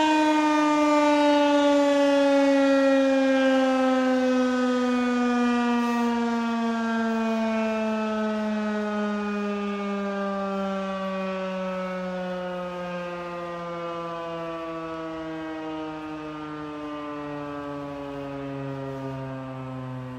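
Federal Signal 2001-130 electromechanical civil-defense siren winding down after its attack cycle: one long falling tone that slides steadily lower and fades as the rotor slows.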